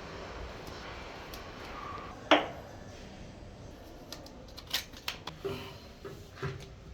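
A single sharp knock about two seconds in, then a run of light clicks and clinks near the end, as of hard objects being handled.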